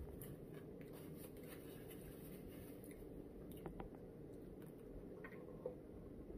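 Faint chewing of a person eating, with a few small scattered clicks, over a low steady background hum.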